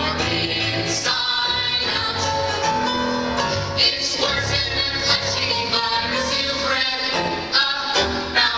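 A song playing: music with singing.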